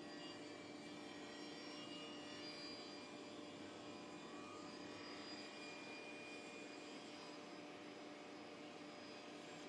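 APEX-J0713 CNC cutting machine running its round saw blade: a steady hum with a faint high whine from the spinning blade and spindle.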